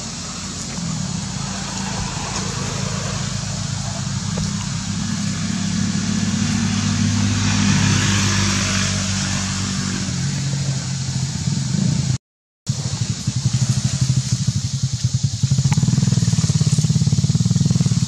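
An engine running steadily, its noise swelling about eight seconds in; the sound cuts out for a moment a little after twelve seconds, then goes on.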